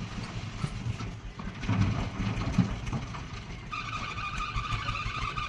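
Diesel engine of heavy earthmoving machinery running, swelling louder for about a second around two seconds in. From about two-thirds of the way through, a steady high whine joins it.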